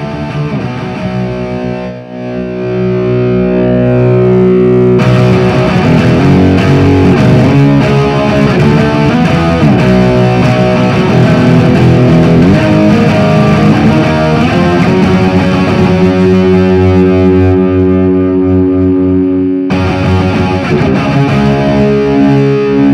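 Electric guitar played through a Soldano SLO 30W Mini amp head with a crunch distortion tone. Held, ringing chords open it, busier riffing starts about five seconds in, and ringing chords return near the end.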